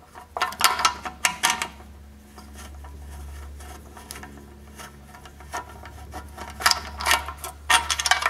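Ratchet wrench clicking as it backs out a half-inch bolt on a small engine. The clicks come in two spells, one at the start and one near the end, with a quieter stretch and a low hum between.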